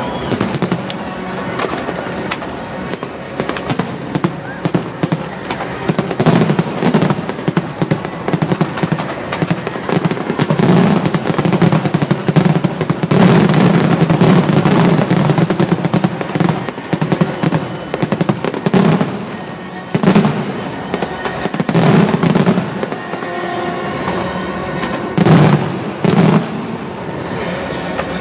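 Fireworks finale: a dense, continuous barrage of bangs and crackling from aerial shells. The volleys are thickest a third of the way through, then come in separate heavy salvos toward the end.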